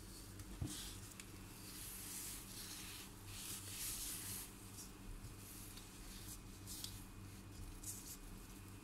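Gloved hands rubbing and brushing against soft cinnamon-roll dough and a granite countertop: soft swishes and small taps, strongest a couple of seconds in, over a faint steady low hum.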